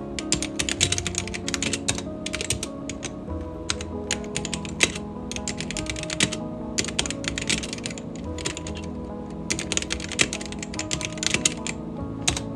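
Fast typing on a computer keyboard, the keys clicking in quick runs broken by short pauses, over soft background music.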